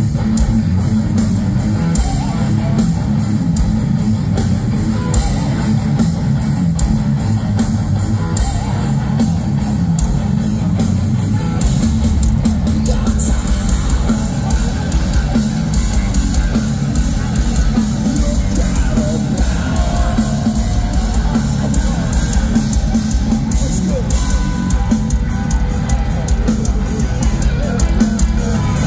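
Heavy metal band playing live at full volume: distorted electric guitars, bass and a pounding drum kit. It is recorded from inside the crowd on a phone, so the sound is bass-heavy and blurred.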